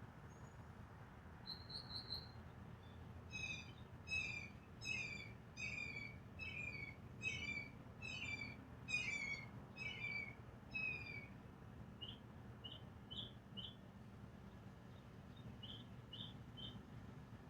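Faint bird calls: a run of about a dozen chirps that each slide downward, roughly three every two seconds, then a handful of shorter, higher chirps near the end, over a faint low hum.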